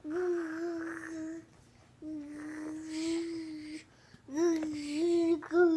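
A young child making a vacuum-cleaner noise with his voice: a steady hummed drone on one note, held three times for a second or two each with short breaks between.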